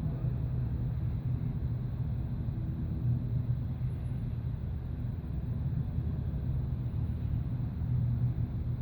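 Jet airliner engines idling during the wait for takeoff: a steady low rumble with no change.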